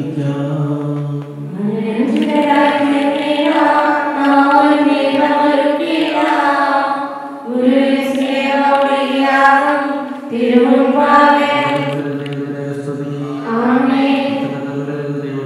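Sung liturgical chant: voices holding long, level notes in slow phrases, each about three seconds, stepping to a new pitch at each phrase.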